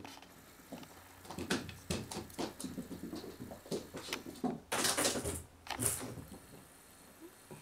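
A run of soft knocks and rustles, then two loud scuffing bursts about five and six seconds in, as the handheld camera is swung about.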